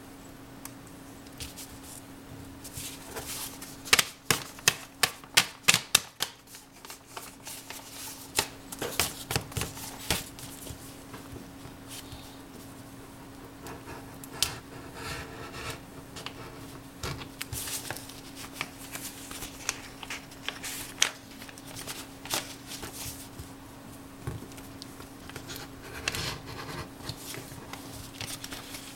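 Paper envelope being handled and worked open: irregular rustling and tapping, with a quick run of sharp clicks about four to six seconds in.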